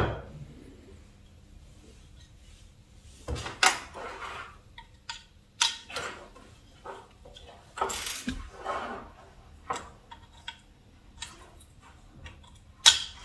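Scattered clicks, knocks and rustling as an opened hard drive is handled and its SATA power and data cable connectors are pushed in.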